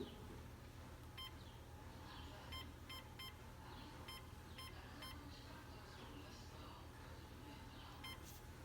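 Faint short electronic beeps from a True 450 treadmill's console, about eight in an irregular series, over a steady low hum.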